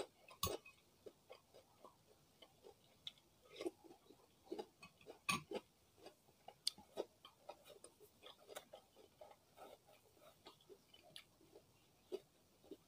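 Close-miked chewing of food: irregular soft mouth clicks and wet smacks, with sharper clicks about half a second in and again around five seconds.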